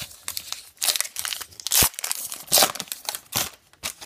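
Wrapper of a baseball card pack being torn open and crumpled, a quick run of crinkling and ripping with two louder rips about two seconds in.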